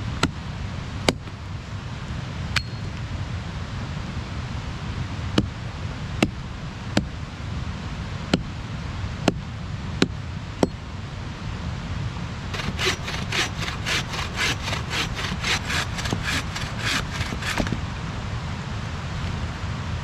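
About ten sharp, irregularly spaced knocks of wood being struck, then a hand saw cutting through wood with quick even strokes, about four a second, for about five seconds.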